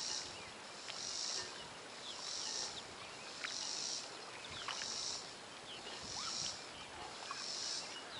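A chorus of insects calling in a regular pulse: a high hiss that swells and fades a little slower than once a second, with a few faint short chirps scattered through it.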